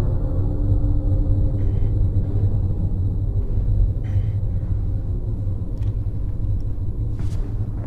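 A steady, deep rumble from the film's soundtrack, with faint held tones over it that fade out about two seconds in, and a brief sharp click near the end.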